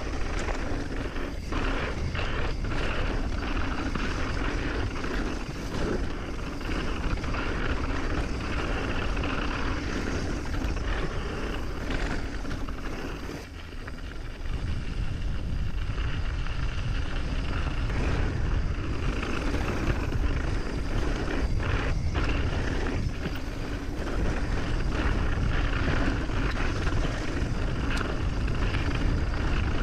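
Mountain bike descending a dirt trail, heard from a GoPro action camera: a steady rush of wind on the microphone and tyres on dirt, with frequent knocks and rattles from the bike over the ground. It goes briefly quieter about 13 seconds in.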